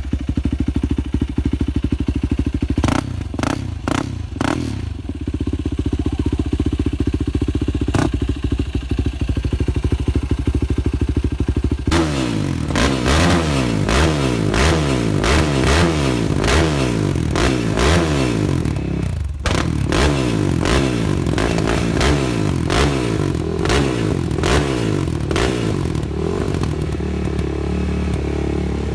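Yamaha YFZ450 quad's single-cylinder four-stroke engine idling steadily, with a few sharp knocks during the idle. About twelve seconds in, the throttle is blipped again and again, the revs rising and falling in quick succession.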